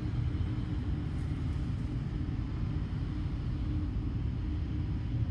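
Fire-line pumps running in a pump room: a steady low rumble with a faint constant hum.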